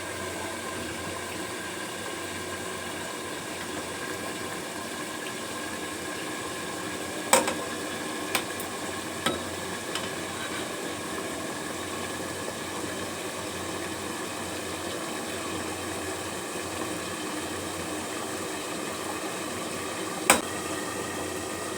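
A pot of rice boiling and a covered pot of chicken simmering on a gas stove, a steady bubbling hiss. A few sharp clinks cut in, the loudest about a third of the way in and near the end.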